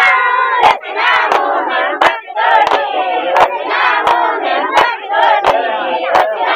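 Group of women singing a folk song together while clapping their hands in time, a sharp clap about every 0.7 seconds.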